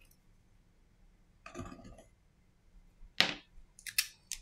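Hands handling a partly disassembled Samsung Galaxy M20 and its parts: a soft scuffing about a second and a half in, then a few sharp small clicks and taps near the end.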